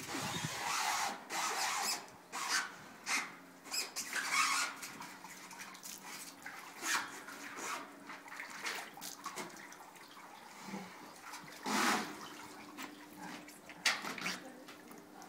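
Brown bear moving about in a bathtub: irregular splashes and knocks, the loudest about twelve seconds in.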